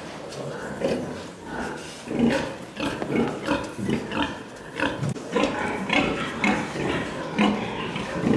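Many pigs in a piggery grunting and squealing: a dense run of short, overlapping calls that grows busier about two seconds in.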